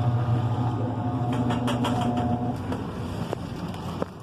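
LG washing machine making the noise it makes on the spin cycle: a steady mechanical hum with a few clicks. The hum stops about two and a half seconds in and the sound drops, leaving a quieter rumble and clicks.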